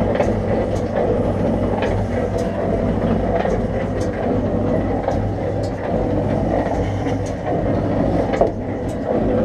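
1947 MacEntee bore pump running steadily with a constant motor hum, cut in by its pressure switch to build the water line's pressure back up. A few light clicks sound over it.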